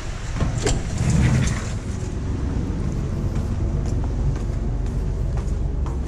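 A steel door is unlatched and pushed open with a couple of clicks and a clunk. Then a steady low rumble, mostly wind on the microphone out on the ship's open deck, with scattered footsteps on the deck.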